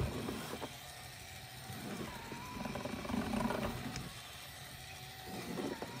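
Battery-powered walking toy space rocket sounding its electronic effects through its small speaker as it walks, in low-pitched swells about a second long that come and go.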